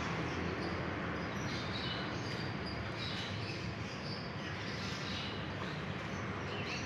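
Outdoor background: a steady low rumble with faint, scattered high chirps of small birds, several in the middle and one near the end.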